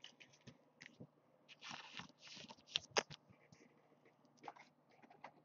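Faint rustling and light clicks of a baseball card being handled and tilted between fingers, with a sharper click about three seconds in.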